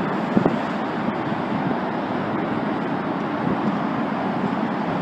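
Steady rumble of a double-stack container freight train rolling across an elevated steel bridge, blended with highway traffic noise, with a single knock about half a second in.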